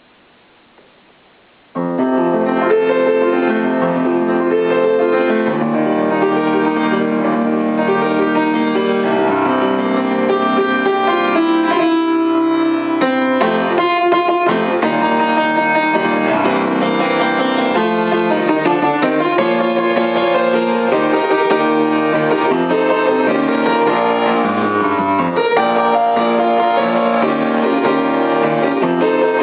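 Piano music starts about two seconds in, after a moment of faint hiss, and plays on steadily, sounding dull with its top end cut off.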